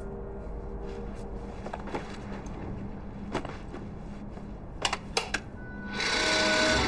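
Wall light switch being pressed: a few sharp plastic clicks in quick succession about five seconds in, after some faint small taps. Music swells back in near the end.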